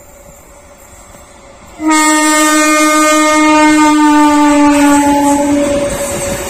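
Indian Railways train horn: one long, steady, loud blast of about four seconds that starts suddenly about two seconds in. As it ends, the rumble of coaches rolling past close by takes over.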